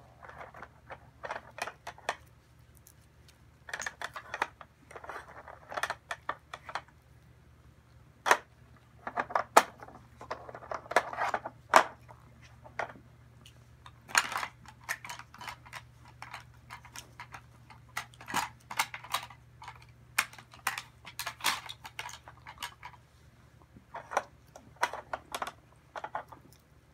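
Hard plastic dog puzzle toys clicking and clattering as a dog noses at the sliding pieces for treats and a hand resets them: irregular sharp clicks and knocks with a few short scraping rubs.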